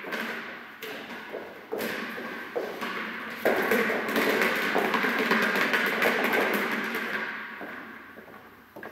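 A rubber ball thrown down and bouncing on a carpeted floor: several thuds, the loudest about three and a half seconds in, each ringing on in the echoing hall and dying away near the end.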